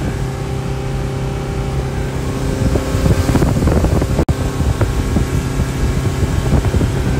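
Motorboat engine running steadily underway, a low even hum over the rush of water along the hull. The sound breaks off for an instant about four seconds in.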